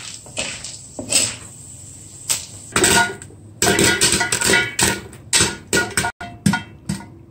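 Popcorn kernels popping in hot oil inside a covered aluminium pan: irregular sharp pops, sparse at first, then coming thick and fast from about three seconds in.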